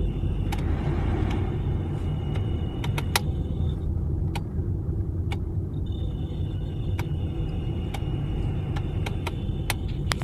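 Mercedes-Benz A-Class (W169) heater blower motor running in the cabin with a thin, high squeal over a steady rush and rumble. The squeal drops out for about two seconds in the middle and then returns; light irregular ticks come through the whole time. The squeal is the fault of a squeaking blower motor.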